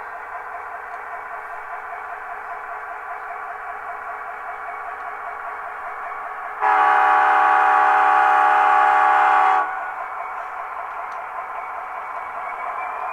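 HO-scale Athearn Genesis SD70ACe model locomotive's Tsunami 2 sound decoder playing a running diesel engine through its small speaker, with one horn blast of about three seconds midway, the loudest sound.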